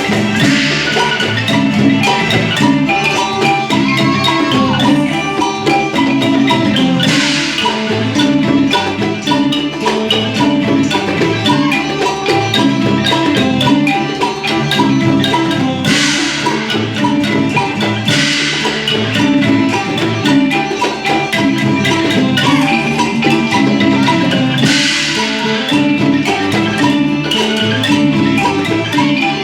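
Northeastern Thai (Isan) folk dance music led by a pong lang wooden xylophone playing quick repeating phrases over a steady percussion beat.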